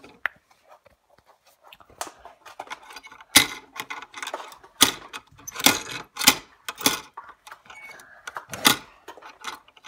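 Metal hardware clinking and clattering as it is handled on a wooden workbench: a threaded rod with nuts and small brackets giving a string of sharp, irregular clinks, several close together in the middle.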